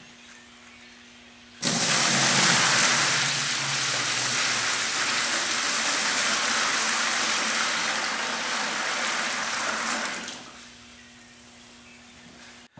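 Hot water poured from a plastic bucket into an empty plastic cooler used as a mash tun, gushing and splashing into it. It starts suddenly about a second and a half in, runs steadily for about nine seconds and tails off as the bucket empties.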